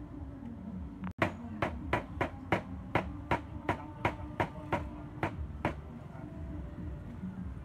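A cleaver chopping on a cutting board: about a dozen quick, even strikes at roughly three a second, starting about a second in and stopping near six seconds, over a low steady background hum.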